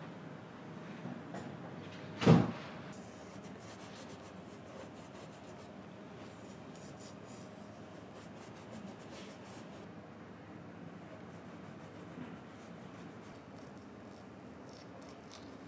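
A single sharp knock about two seconds in, followed by light, rapid scratching and rubbing from hand work on a shoe sole.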